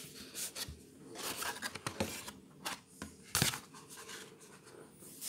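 Cardboard booster display box being handled and opened: cardboard rubbing and scraping, with several short knocks, the loudest about three and a half seconds in.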